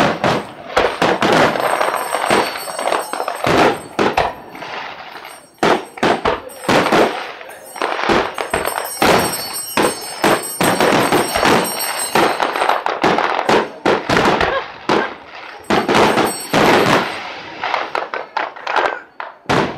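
Aerial fireworks shells bursting in rapid succession: a dense run of sharp bangs, often several a second.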